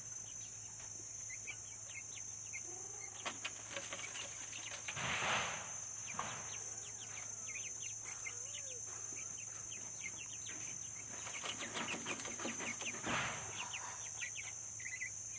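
Village chickens clucking around their coop with small birds chirping throughout, and a short noisy flurry about five seconds in and again near thirteen seconds.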